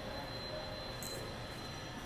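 Steady background hum of an underground-style rail platform, with a faint high whine and a brief high hiss about a second in.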